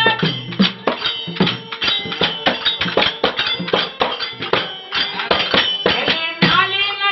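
Instrumental break in a Kannada devotional bhajan: a pair of tabla-type drums played in a fast, busy rhythm, with small hand cymbals clinking and a harmonium holding notes underneath. The singing comes back in near the end.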